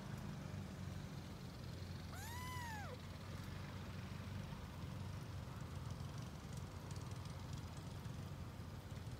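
A Munchkin kitten mewing once, a single call about two seconds in that rises and then falls in pitch, over a steady low hum.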